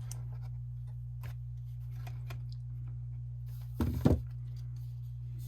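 A steady low hum, with a brief cluster of knocks and handling noise about four seconds in as packaging and accessories are handled.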